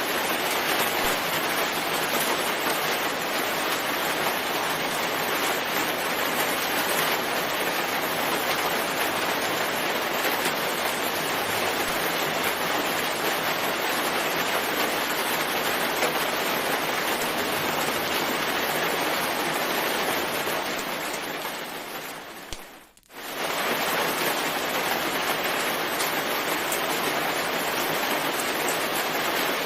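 Steady, dense rain falling. About 22 seconds in the rain fades down to a brief moment of near silence, then returns at full level: the seam where the recording loops.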